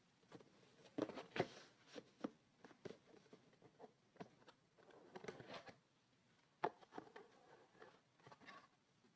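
Hands working on a mechanical keyboard during a switch swap: scattered plastic clicks and short scrapes at irregular times, a few sharper clicks standing out about a second in and again near two-thirds of the way through.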